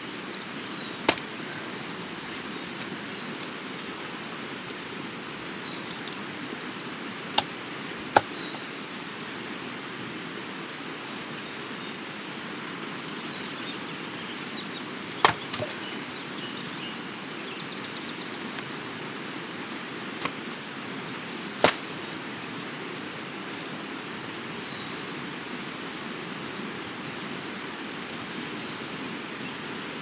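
Outdoor ambience: a steady hiss with small birds chirping and trilling now and then. About six sharp knocks fall at irregular intervals.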